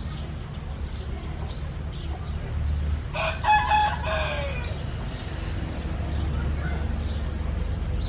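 A Thai gamecock rooster crows once, about three seconds in. The crow is a loud call of about a second and a half that falls in pitch at its tail.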